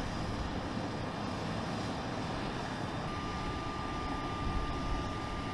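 Aircraft engine noise on the ground, a steady rumble and hiss. A thin steady whine joins about three seconds in.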